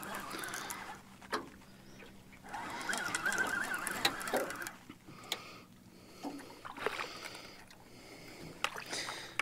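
Fishing reel being cranked in uneven spells against a hooked blue catfish pulling on the bent rod, with a few sharp knocks and water slapping at the aluminium jon boat's hull.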